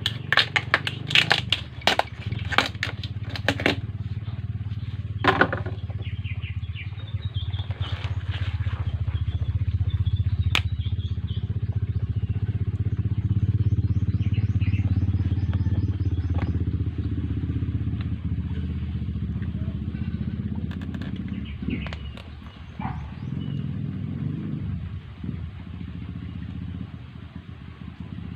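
Sharp clicks and cracks of a knife working into a spiny lobster's hard shell, bunched in the first few seconds with a few single ones later. Under them runs a steady, low engine drone that swells through the middle.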